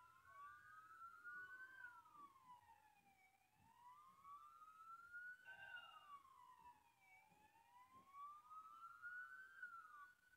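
Emergency-vehicle siren in a slow wail, faint, rising and falling about every four seconds. A second siren overlaps it at the start.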